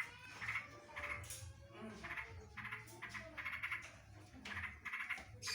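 Yellow-vented bulbul singing a string of short, rapid chattering bursts, copying the greater green leafbird's fast 'tembakan' call phrases.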